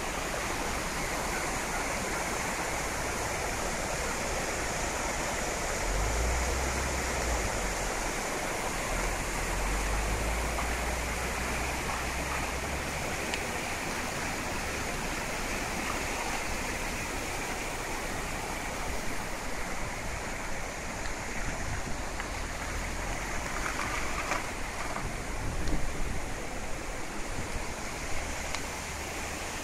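Muddy floodwater rushing in a steady, dense roar down a ravine channel swollen by heavy rain, with a low rumble swelling for a few seconds near the start.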